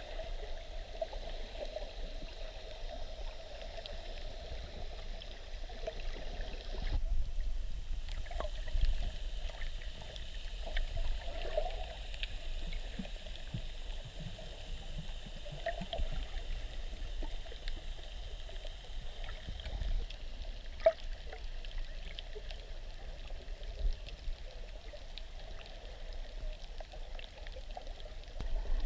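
Muffled water sounds picked up by a camera in or at the surface of the sea while snorkelling: steady sloshing and gurgling, with scattered small clicks and an abrupt change in the sound about seven seconds in.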